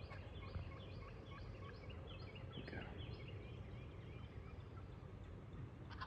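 Wild turkeys calling faintly: an evenly spaced series of short repeated notes, yelps, over a low steady rumble.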